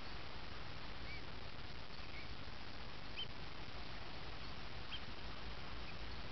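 A handful of short, faint bird calls, about one every second, over a steady even hiss.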